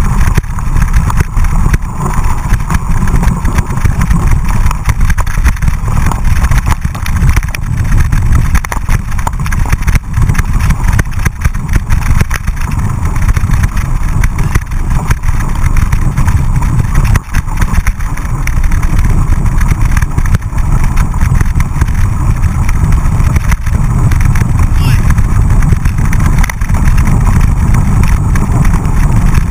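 Mountain bike ridden fast over a dirt and gravel track, heard through a bike-mounted camera: a loud, steady low rumble of wind and tyre noise on the microphone, broken by constant small jolts as the bike rattles over the bumps.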